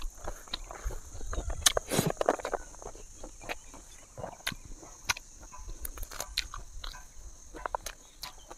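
A person chewing food close to the microphone, with many small wet mouth clicks and smacks scattered through.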